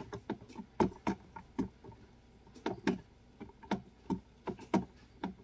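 Irregular light clicks and taps, a few per second, from a hamster moving about at the plastic fittings of its cage.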